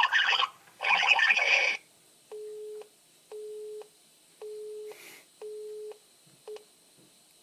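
Telephone line's engaged (busy) tone, heard in place of a dial tone: a single steady beep, half a second on and half a second off, five times, with the last one cut short. It follows a couple of seconds of loud noise at the start.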